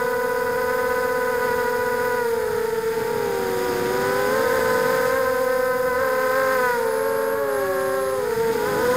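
Quadcopter's brushless motors and propellers whining in flight, heard from the onboard camera: a steady pitched hum of several close tones that waver and drift apart as the throttle changes.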